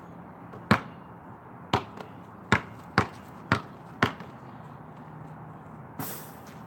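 Basketball bouncing on a concrete court, six sharp bounces in the first four seconds that come closer together toward the end. About six seconds in there is a brief scratchy noise.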